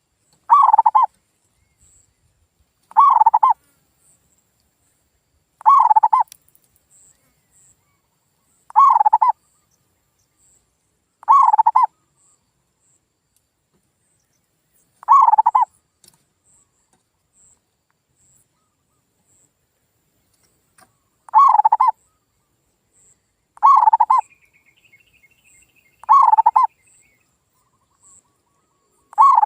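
Male zebra dove (perkutut) cooing song: a short cooing phrase repeated about every two and a half to three seconds, ten times, with one longer pause in the middle.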